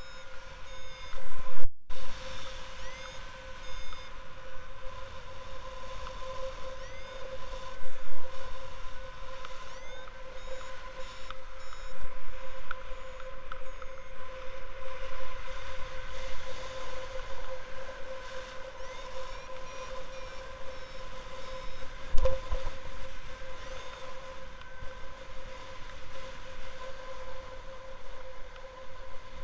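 Wind rushing over the microphone of a camera on a flying paraglider, swelling louder in gusts several times, with a steady tone and short rising chirps running through it.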